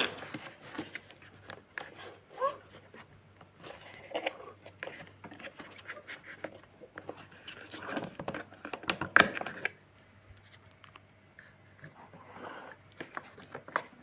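Hard plastic parts of a Bosch Serie 4 vacuum cleaner being handled: irregular clicks, taps and light scrapes as the pleated HEPA filter is worked at its compartment. The clicks are busiest about eight to nine and a half seconds in.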